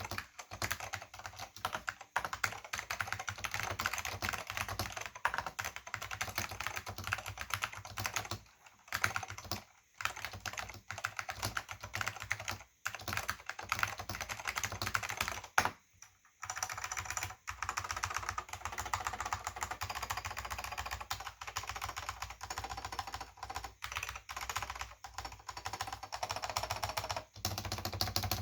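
Fast, continuous typing on a Silicon Graphics Granite keyboard with orange Alps SKCM switches and thin PBT keycaps, a rapid stream of clicks with brief pauses about nine and sixteen seconds in. The sound is very hollow with no bass tones, which the owner puts down to the chassis or the thin keycaps.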